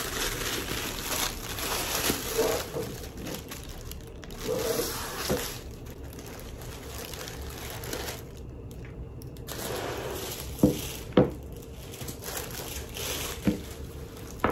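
Tissue paper rustling and crinkling as it is pulled back and the shoes are lifted out of the box, with two sharp knocks a little after ten and eleven seconds in.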